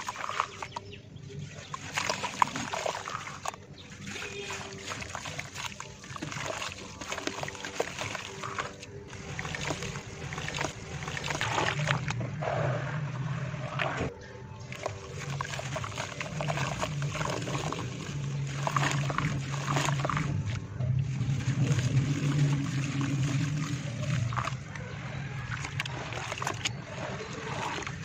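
Hands squeezing and kneading soft red dirt under water in a basin: wet squelching, sloshing and splashing, with mud crumbling and dribbling into the water.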